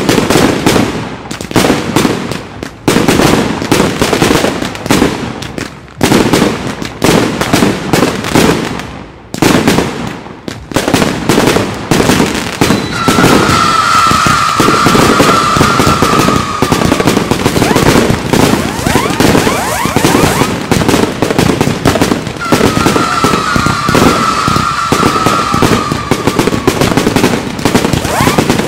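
Daytime aerial fireworks: rapid volleys of loud bangs from bursting shells for about the first twelve seconds, then dense, continuous crackling as many effects go off at once. A whistling tone that falls slightly in pitch sounds twice through the crackle.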